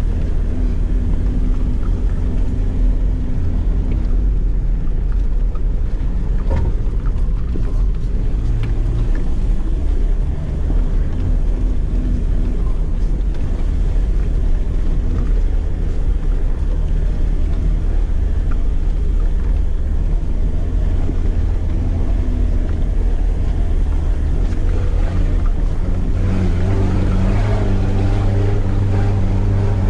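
Land Rover Defender 90's engine running steadily as it crawls along a rough dirt bush track, with a few light knocks from the vehicle. Near the end the engine note rises and grows busier as it works harder.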